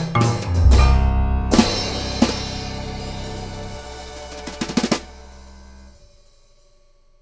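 Background music with drums. The band lands on a final chord that slowly fades, with a quick run of drum hits just before the end, then dies away.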